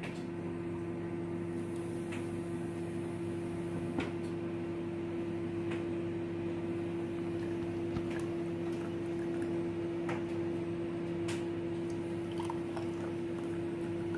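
Thick peanut smoothie being poured from a bowl into drinking glasses, with a few light clicks, over a steady low hum.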